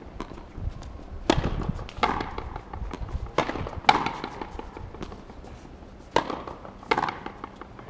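Frontenis rally: the hard rubber ball cracks off a player's racquet and smacks against the fronton's front wall, six sharp hits in three pairs, each pair about half a second apart.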